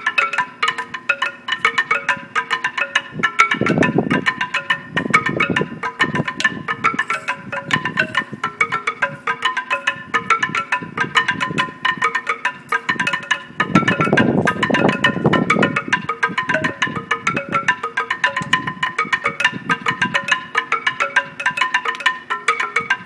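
Homemade wooden xylophone, loose wooden bars on sawhorses, played by two people at once with fast, dense strikes. They are playing an interlocking pattern, one taking the start part and the other the mix part.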